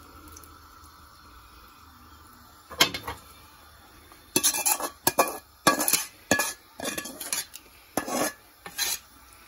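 Serving spoon clinking and scraping against a cooking pot as chicken is spooned in over a layer of rice: one knock about three seconds in, then a quick run of clinks and scrapes.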